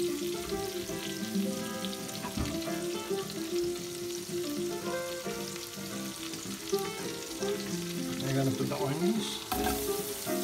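Butter sizzling and bubbling in a stainless steel pot. Near the end, sliced parsnip and potato are tipped into the pot, and the sound gets louder.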